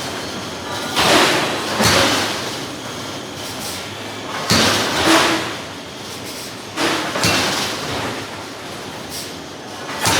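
A hydraulic forging hammer striking hot steel: several heavy blows at uneven intervals, each followed by a short ring, over steady forge-shop noise.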